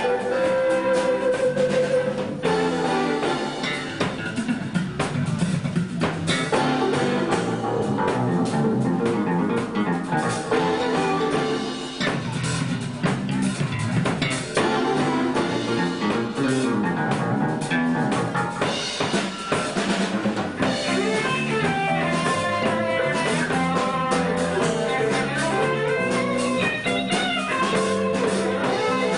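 Live band playing: drum kit with rimshots and electric guitar, backed by bass and keyboards.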